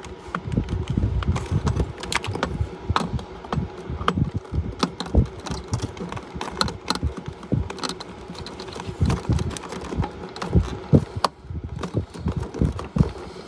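Irregular clicking, rattling and knocking of hands working among cables in black corrugated plastic wire loom, over a faint steady hum.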